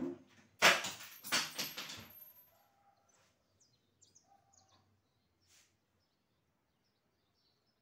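A heavy wooden bed being dragged across the floor: a loud, scraping rumble lasting about a second and a half near the start. Faint bird chirps follow.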